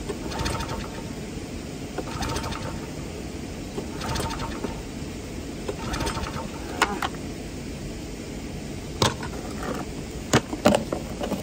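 Recoil starter of a wing mower's small petrol engine pulled four times, about two seconds apart. Each pull is a short rasping rattle of cord and starter, and the engine never catches: it is hard-starting, which the owner suspects is carburettor flooding from the mower being tilted. Near the end there are a few sharp knocks and clatters as the mower is shifted.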